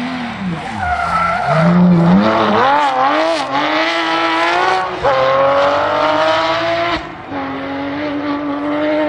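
Porsche 911 GT3 rally car's flat-six engine at hard throttle as the car passes. The pitch dips early, then climbs, with gear changes about five and seven seconds in.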